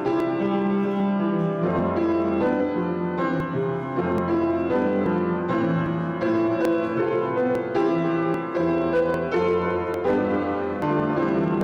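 Piano music: a solo piano playing a flowing piece of sustained, overlapping chords and melody notes.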